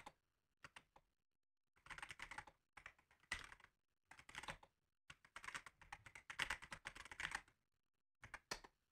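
Faint computer keyboard typing: quick runs of keystrokes broken by short pauses as a sentence is typed out.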